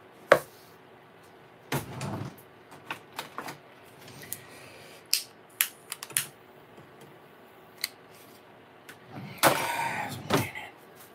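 Clicks and knocks of objects handled on a counter, including several clicks of a long-neck utility lighter being worked to light a candle, then a louder stretch of rustling handling noise near the end.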